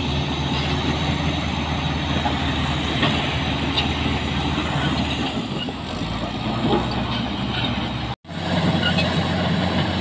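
Crawler bulldozer's diesel engine running steadily under load as it pushes a pile of rocks with its blade, with a few small knocks of rock. The sound drops out for an instant a little past eight seconds in.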